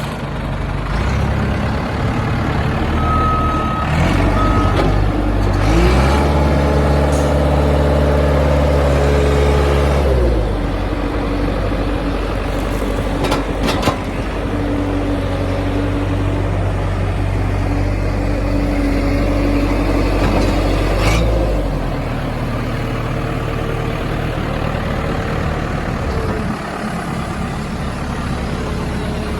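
New Holland 655E backhoe loader's diesel engine running. It revs up about six seconds in, holds for about four seconds, then drops back and settles to a lower idle a little past twenty seconds. A couple of short beeps sound early on, and a few sharp clicks come near the middle.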